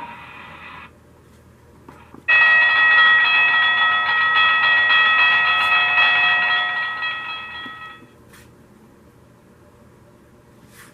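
Soundmaster 210 model railroad sound effects machine playing a train whistle through an antique radio speaker. One sudden, steady, several-note blast starts about two seconds in, holds for about five seconds, then fades away.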